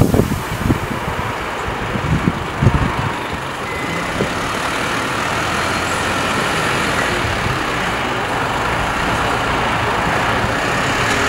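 Mercedes-Benz Unimog U 5023 truck's four-cylinder turbo-diesel engine running as the truck drives slowly past over rough ground, getting somewhat louder toward the end. A few irregular thumps in the first three seconds.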